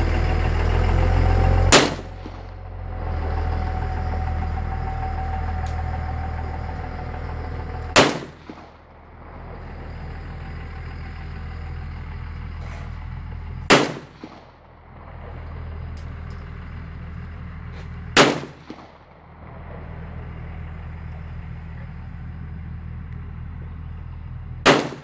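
Five single shots from a 9mm Beretta 92FS pistol, fired slowly, about five to six seconds apart. A steady low rumble runs between the shots.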